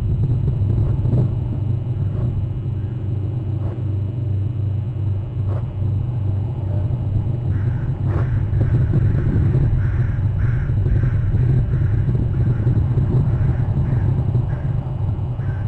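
A steady low rumble, with a run of short, high chirping calls, several a second, starting about halfway through.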